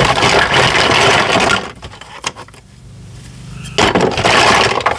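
Small plastic toys rattling and scraping against the bottom of a cardboard box as a hand rummages through them, in two stretches with a quieter pause of about two seconds in the middle.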